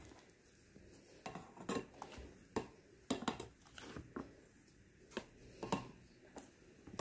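Spatula scraping and knocking against a stainless steel saucepan while egg white meringue is folded into egg yolk batter. The knocks and scrapes come at irregular intervals, about one a second, with the strokes.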